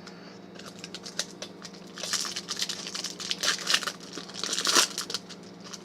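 Foil trading-card pack wrapper being torn open and crinkled, in crackling bursts from about half a second in, loudest near the middle and again near the end.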